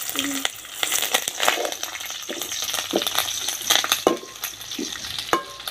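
Snails and curry leaves sizzling in hot oil in a metal pan over a wood fire, with a ladle stirring, scraping and knocking against the pan.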